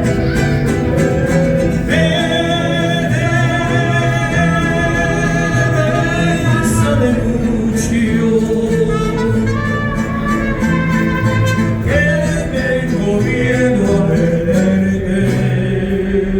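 A song plays, with a singing voice over instruments and a steady bass line; the lyrics are in Spanish.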